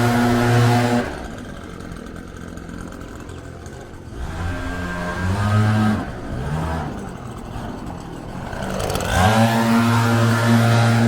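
Bobcat 753 skid steer's diesel engine running steadily at high throttle. About a second in it falls away to a much quieter, uneven low running. Near the end it revs back up to the same steady high-throttle pitch.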